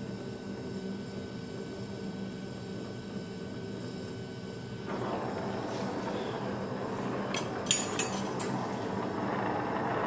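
A steady workshop hum, joined about five seconds in by a rushing hiss. A few seconds later come several sharp metal-on-metal clinks in quick succession.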